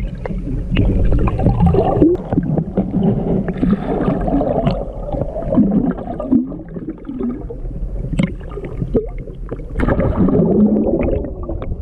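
Muffled water sloshing and bubbling heard through a camera held underwater, with a few sharp clicks and knocks scattered through it.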